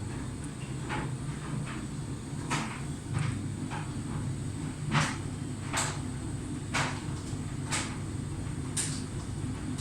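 Miele Novotronic W1514 washing machine near the end of its programme after the final spin: a steady low hum with a short swish or knock about once a second, as the laundry shifts in the slowly turning drum.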